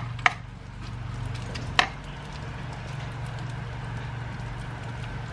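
Chopped bacon sizzling in a frying pan, with a wooden spatula knocking against the pan twice, about a second and a half apart, and a low steady hum underneath.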